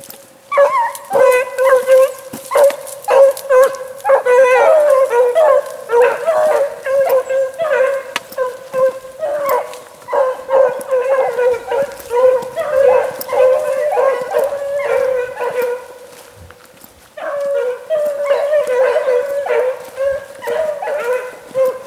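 Rabbit-hunting hounds baying in a long run of repeated calls, with a break about sixteen seconds in before the baying picks up again: the dogs are running a rabbit on its scent trail.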